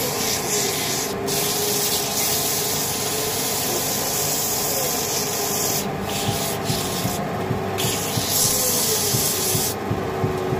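Sandpaper held against a wooden leg spinning on a wood lathe: a loud, steady sanding hiss over the lathe's hum, which wavers a little in pitch. The hiss drops out briefly several times as the paper is lifted off, and the hum carries on.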